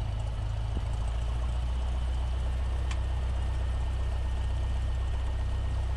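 Cessna 172's piston engine and propeller droning steadily in the cabin as a low hum, with one faint click about halfway through.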